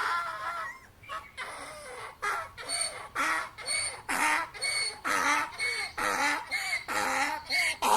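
Donkey braying: a long drawn-out call dies away in the first second, then a run of short rhythmic calls follows, about two a second.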